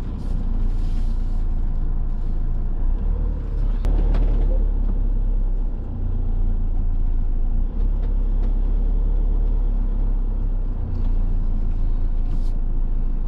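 Motorhome engine and road noise heard from inside the cab while driving: a steady low rumble, with a brief knock about four seconds in.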